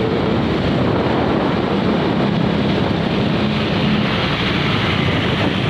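Steady wind noise buffeting the microphone, over the wash of surf on a beach.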